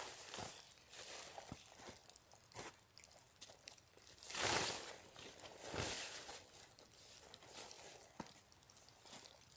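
Scattered crunching and rustling, with a louder crunch about four and a half seconds in and another just before six seconds.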